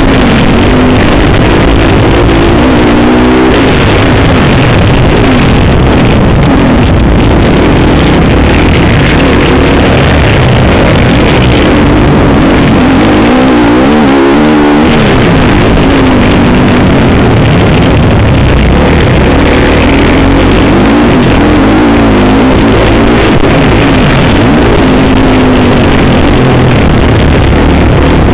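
Motocross bike engine running hard, heard from a camera on the bike, its pitch rising and falling over and over as the rider works the throttle and gears, with a quick rise and fall about halfway through. The sound is loud and pinned at full level throughout, heavily distorted, with wind noise mixed in.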